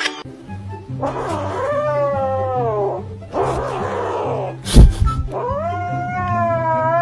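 Domestic cat giving two long, drawn-out meows of about two seconds each, the first rising and then falling in pitch near its end. A sharp thump about five seconds in is the loudest sound, with background music underneath.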